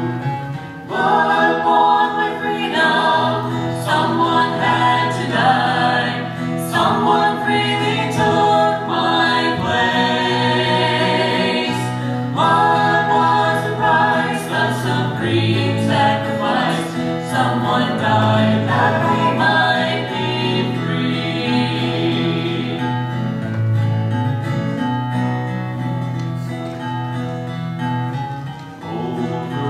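Gospel trio of two men and a woman singing in harmony, with acoustic guitar accompaniment.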